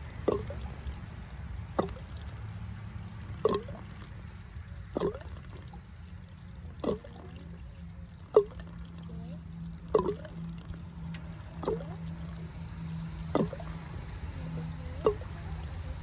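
Water dripping one drop at a time into standing water, a regular plink about every second and a half, over a steady low hum.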